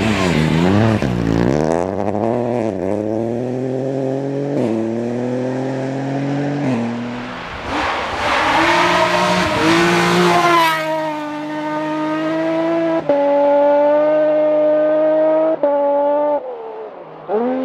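Rally car engine revving hard and rising and falling sharply through a corner, with a burst of tyre noise around the middle. It then pulls away at full throttle through several quick upshifts.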